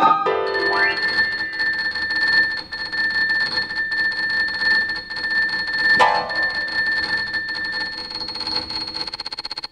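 Electroacoustic music from the electronics part of a piece for piano and electronics: a chord of steady, high ringing tones with a fast flutter, like a bell ringing on and on. A quick rising glide comes near the start and a sharp struck accent about six seconds in.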